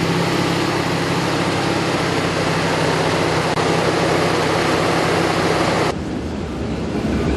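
Fire engine's diesel engine running close by as the truck drives up a forest track: a steady, loud drone. About six seconds in it cuts off abruptly to a quieter outdoor rushing noise.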